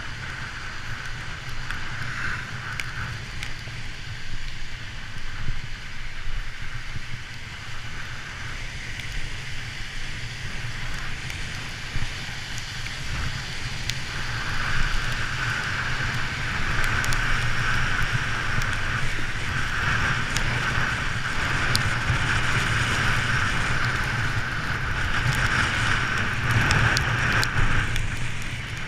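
Wind buffeting the microphone and tyres hissing on a rain-soaked street while riding, a steady noise that grows louder about halfway through.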